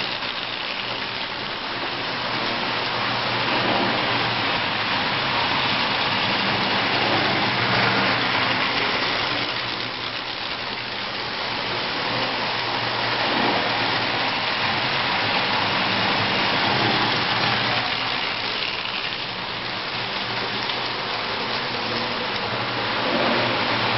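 Marx tinplate toy trains running on three-rail metal track: a continuous rattling clatter of wheels on the rails with an underlying electric motor hum, swelling and easing as the trains pass close by.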